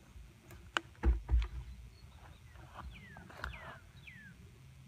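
A bird giving four short whistles that slide downward in pitch, a little over halfway through. Before that come a few light clicks and dull thumps about a second in, as hands handle a pulled clump of nutsedge roots and soil.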